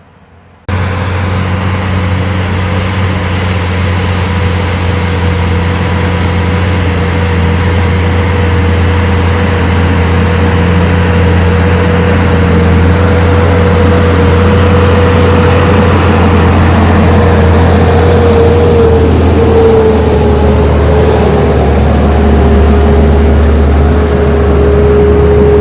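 Tractor engine running steadily, a low rumble with a steady high whine above it, cutting in abruptly about a second in.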